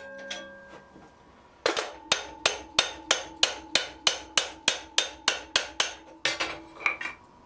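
Hand hammer striking a red-hot half-inch square iron bar over the anvil horn, forging the sides of a drifted slot to shape. Even blows come about three a second, each with a ringing note from the anvil, then a few slower blows near the end.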